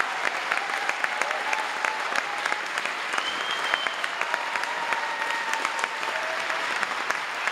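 Concert audience applauding steadily at the end of a song: many hands clapping at once.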